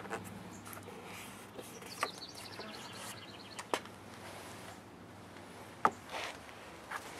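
Quiet outdoor background with a few sharp clicks spread through it. A short bird trill of quick repeated high notes comes about two seconds in.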